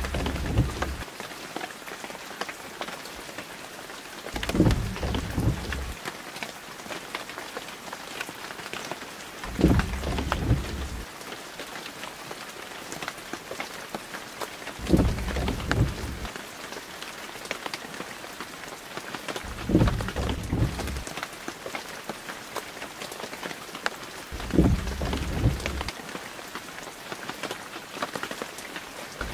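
Steady rain falling, with a low rumble that swells for a second or so and fades, coming back about every five seconds.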